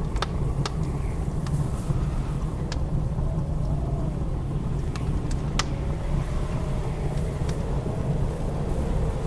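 Blizzard wind blowing as a steady low rumble, with a faint wavering whistle rising and falling over it. Sharp crackles and pops of a wood fire burning in a fireplace come every second or so.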